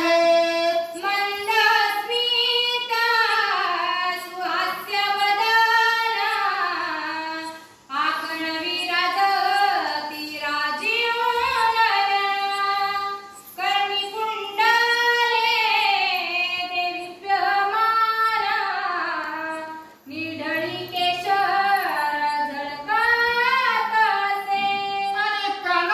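A single high female voice singing a devotional verse in long, gliding melodic phrases, pausing for breath about 8, 13 and 20 seconds in.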